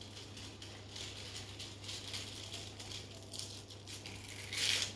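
Soft, irregular rustling of thin pastry sheets being handled and folded into samosas, with a louder rustle near the end.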